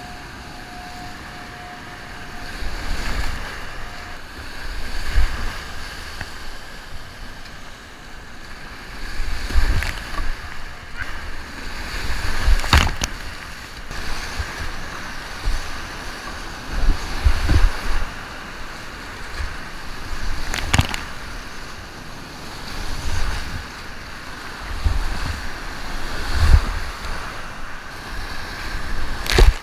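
Whitewater rapids rushing around a kayak, heard close up from a camera on the boat. Repeated low rumbling surges and a few sharp splashes come as the boat runs through the waves.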